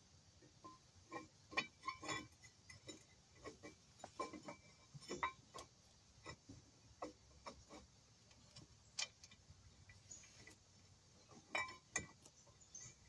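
Hand tools clicking and clinking against metal while working on a pickup's wheel hub assembly: irregular sharp metallic ticks in quick clusters, with short pauses between them.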